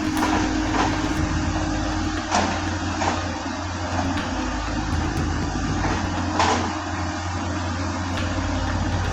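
Excavator diesel engine running steadily with a low drone, with a few sharp knocks or cracks over it, loudest about six seconds in.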